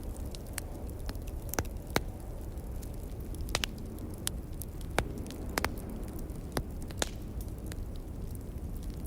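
Wood fire crackling, with scattered sharp pops over a steady low wind rumble; a few louder pops stand out, about two, five and seven seconds in.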